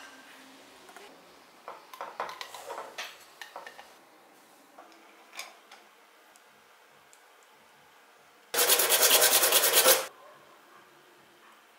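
Hard PVC fittings clicking and scraping as they are handled and pressed together. Near the end comes a loud rasping scrape lasting about a second and a half: a craft knife blade dragging through a sheet of rubber.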